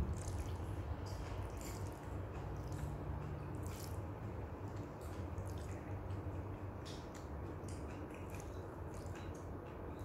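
Wet chewing and mouth sounds of someone eating fried flat rice noodles (kwetiau goreng), with scattered light clicks of a fork and spoon, over a steady background hiss and low hum.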